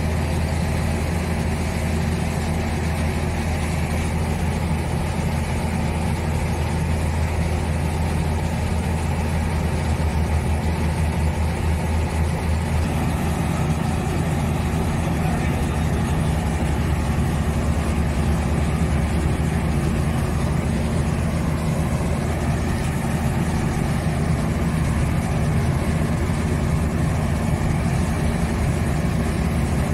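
Large boat engine idling steadily, a low, even drone.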